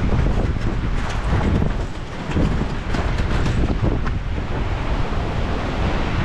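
Wind buffeting an action camera's microphone: a heavy, low rumbling noise that swells and eases in gusts.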